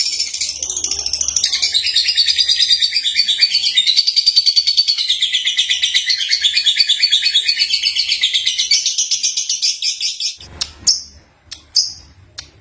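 Young lovebird (Agapornis) singing: a long, rapid, high-pitched chattering warble that runs for about ten seconds, then breaks off into a few short separate chirps near the end.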